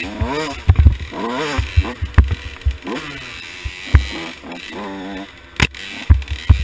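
A KTM 85 SX two-stroke dirt bike engine with a big bore kit, revving up and falling back again and again as the rider works the throttle through the trail, with frequent short low thumps.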